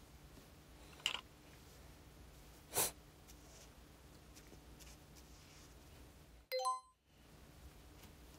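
Quiet room tone with faint brush-pen strokes on paper card. A sharp click comes about a second in, a short hissing burst near three seconds is the loudest sound, and a brief ding of several tones sounds at about six and a half seconds.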